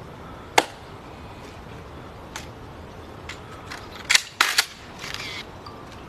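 Rifle being handled: one sharp metallic clack under a second in, a few light clicks, then a quick run of loud clacks about four seconds in and a brief rattle.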